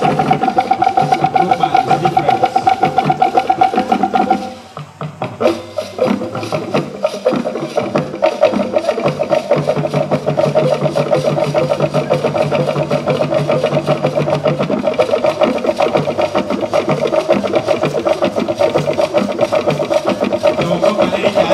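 Traditional Annang dance music: fast, dense percussion with a steady high held tone over it. The music drops away about four seconds in and returns a second or two later at a slightly lower pitch.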